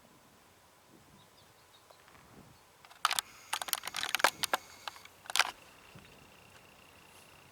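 A quick flurry of sharp clicks and taps with a slight metallic ring, starting about three seconds in and lasting about two and a half seconds, followed by a faint steady high tone.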